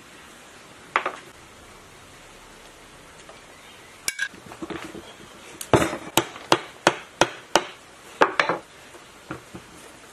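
Sharp metallic knocks on a rusty three-phase sewage pump's iron casing as it is worked apart: a single knock, a clunk, then a run of about six evenly spaced knocks roughly three a second, with a few weaker ones trailing off near the end.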